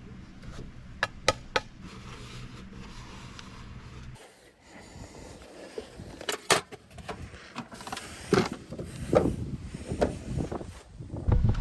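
Scattered clicks and knocks of things being handled inside the truck, over a steady low hum that stops about four seconds in; a loud low rumble starts near the end.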